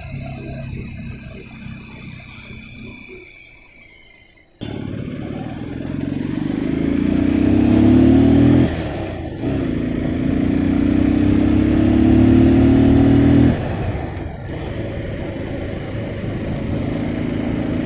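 Motorcycle engine under way, pulling up through the gears. For the first few seconds its note fades low, then it comes back suddenly and rises twice in pitch, with a sharp drop at a gear change about nine seconds in and again near thirteen seconds, before settling to a steady cruise.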